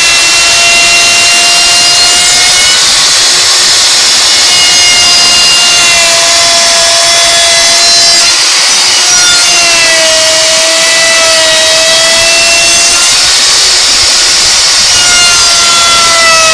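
Makita plunge router running at full speed and cutting a notch into a timber beam: a loud, continuous motor whine whose pitch shifts slightly as the bit takes the wood, over the hiss of the cut.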